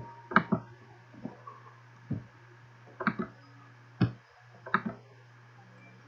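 Computer mouse buttons clicking: about ten short, sharp clicks, some in quick pairs, over a steady low hum.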